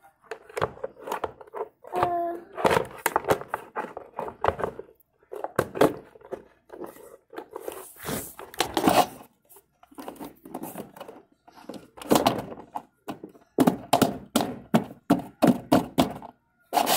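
White plastic electric fan parts being handled and fitted together: irregular clusters of knocks, clicks and rattles of hard plastic, with short pauses between them.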